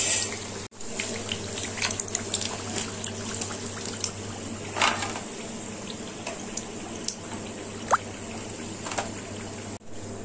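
Hot oil sizzling and crackling around namkeen pieces deep-frying in a pan, with a few sharp clatters as fried pieces are lifted out with a steel slotted spoon onto a steel plate. A low steady hum runs underneath.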